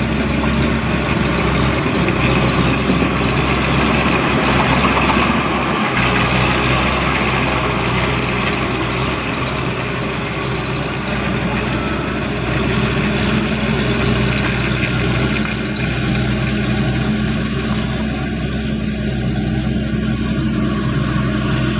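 Engine of a small tracked rice-paddy tractor running steadily as it works a flooded paddy field.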